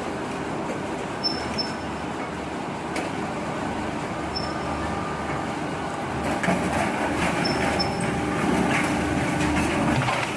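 Industrial metal shredder grinding up an engine casing: a steady heavy mechanical rumble with metal clanks and squeals, getting louder about six seconds in.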